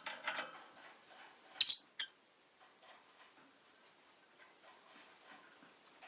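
A rosy-faced lovebird gives one short, loud, high chirp about a second and a half in, followed by a brief click. Soft scattered ticks fill the rest.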